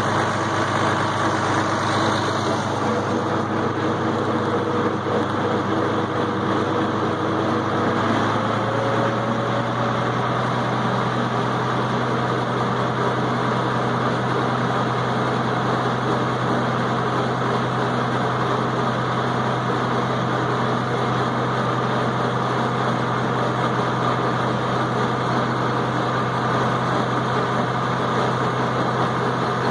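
International Harvester tractor engine running steadily under way, heard from the operator's seat beside its upright exhaust stack. About eight seconds in, the engine speed picks up slightly and then holds.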